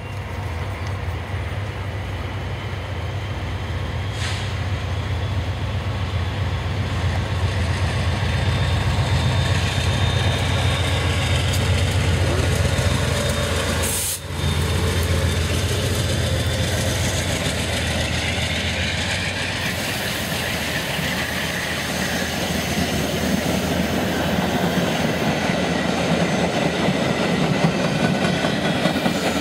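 VIA Rail GE P42DC diesel locomotive approaching with a steady low engine rumble, then passing close by about halfway through, followed by its passenger cars rolling past with wheels clattering over the rail joints.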